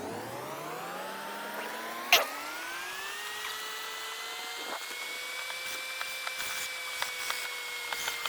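A small electric motor spinning up with a rising whine, then running steadily at speed. A single sharp knock about two seconds in.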